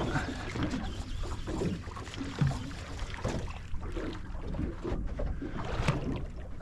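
Sea water lapping and slapping against the hull of a small boat, over a steady low rumble, with a few light knocks.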